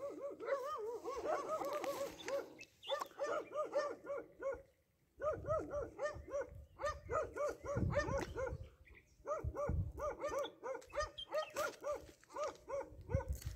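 An animal yapping in fast runs of short, identical yelps, about five a second, broken by brief pauses. A low rumble comes and goes from about five seconds in.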